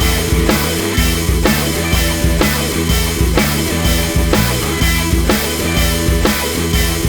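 Rock-style background music with a steady drum beat, about two beats a second, and guitar.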